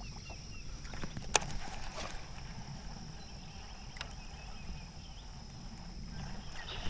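A buzzbait being reeled across the water surface, its blade churning faintly and steadily while a baitcasting reel is cranked. There is a sharp click about a second and a half in.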